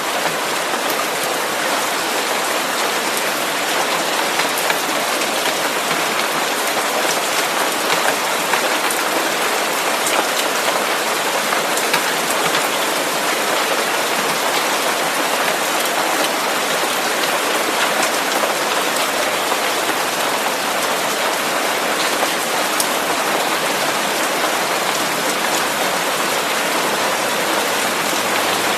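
Steady masking noise with a rain-like hiss: an even, unchanging rush with faint scattered ticks like drops.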